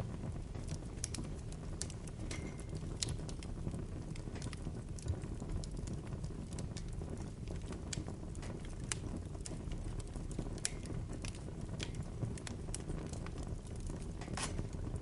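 Bonfire burning: a steady low rumble of flames under irregular sharp crackles and pops from the burning wood, with one louder pop near the end.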